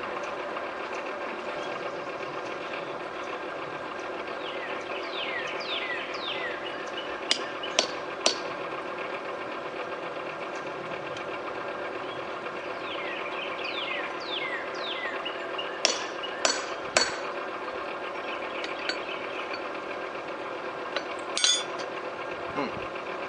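A hammer strikes a hand-held chisel set on a steel bar on an anvil to cut it through: two sets of three sharp metallic blows about half a second apart, then a short burst of blows near the end. Under them is a steady hum, and a bird calls in runs of quick falling chirps.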